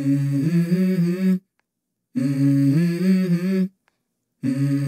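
Opening of a song: a wordless hummed vocal phrase about a second and a half long, heard twice with short silences between, and a third beginning near the end.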